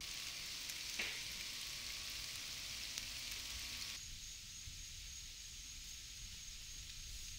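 Outdoor summer ambience: an even, high hiss of an insect chorus with a couple of faint clicks, changing about four seconds in to a quieter background with one steady, high insect trill.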